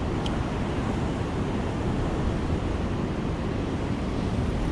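Steady rushing noise of wind on the microphone mixed with ocean surf, even throughout with no distinct event.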